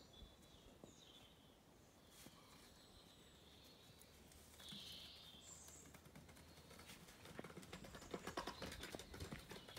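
Quiet outdoor ambience with a few short bird chirps; from about seven seconds in, a quick run of light taps and scuffs growing louder as the dogs trot across the ground.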